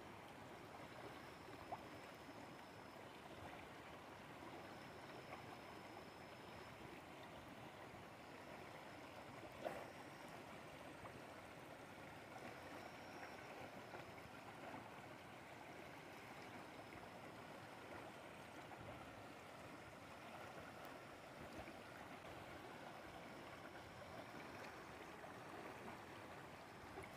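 Faint, steady rush of a swollen river running fast over rocks and shallow rapids, with a sharp click about ten seconds in.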